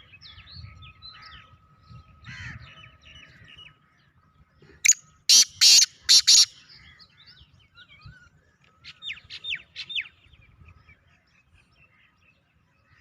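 Black francolin giving its loud, harsh, grating call, a quick run of about five notes about five seconds in. Softer chirping and twittering of small birds comes before it, and a quick series of short chirps follows about four seconds later.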